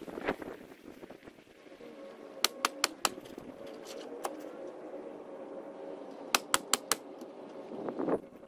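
Ridgid 15-degree coil roofing nailer firing nails into asphalt shingles in quick runs: four sharp shots about two and a half seconds in, a single shot about a second later, then five more in quick succession near the seven-second mark. A steady hum runs underneath.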